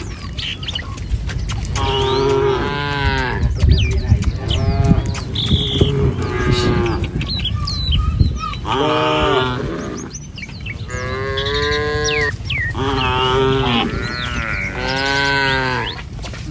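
Village cattle mooing again and again: about six long calls, one after another, many dropping in pitch at the end.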